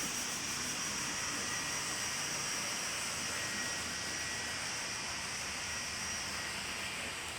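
Steady machine hiss with a faint, constant high whine, running evenly without change.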